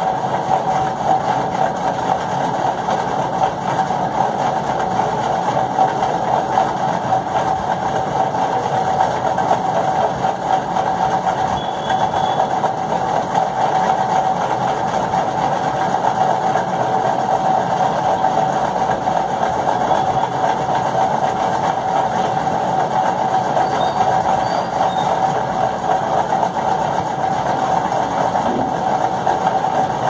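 A steady mechanical hum from a running motor, with one constant mid-pitched tone over an even whir and no change in speed.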